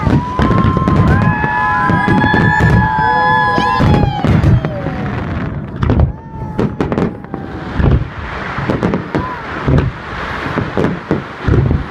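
Fireworks salute going off: many sharp bangs in quick succession, with held whistling tones over them during the first four seconds and a crackling hiss later on.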